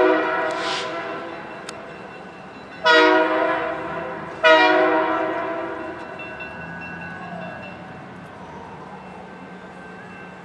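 Diesel locomotive's multi-chime air horn sounding three blasts for a grade crossing: one right at the start, then two more about 3 and 4.5 seconds in, each echoing off the buildings as it fades. After them the locomotive's diesel engine runs low and steady as it approaches.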